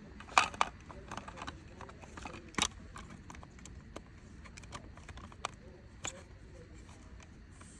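Plastic clicks and taps as a wood-grain trim panel is fitted into its black plastic housing, with the two loudest clicks about half a second in and at about two and a half seconds, and a few softer ones after.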